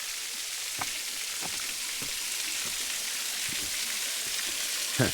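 Steady rush of a waterfall's falling water, an even hiss with faint short ticks of spatter now and then.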